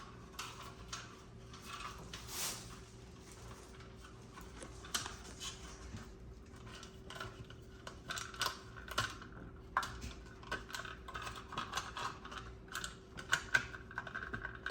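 Irregular light clicks and rattles of hands working electrical cable into an old-work electrical box, growing busier in the second half, over a faint steady hum.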